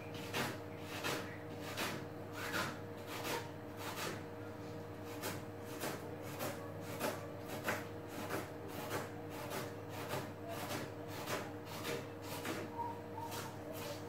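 Kitchen knife chopping an onion on a plastic cutting board: a steady run of sharp taps, about three a second.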